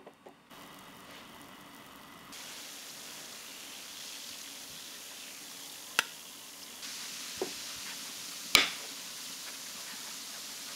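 Pot of chestnuts in their inner skins boiling on a gas stove: a steady bubbling hiss that grows louder after a couple of seconds, with three sharp pops, the last the loudest.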